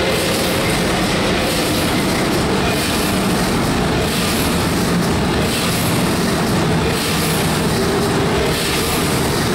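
1932 Burmeister & Wain double-acting two-stroke marine-type diesel engine running with a loud, steady mechanical clatter, at the point in its start-up where fuel injection is started once it turns fast enough.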